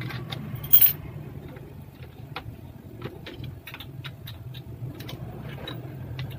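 Nut and bolt being fastened by hand on the steel leg and foot tube of a weight bench: small metal clicks and taps, with one sharp metallic clink about a second in, over a steady low background hum.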